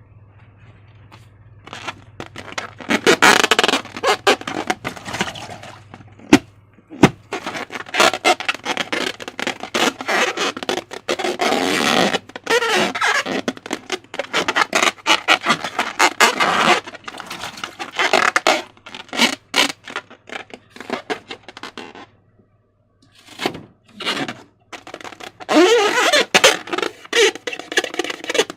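Slime being squeezed and worked by hand: irregular sticky crackles, squelches and scraping clicks, starting about two seconds in, with a short pause about two-thirds of the way through.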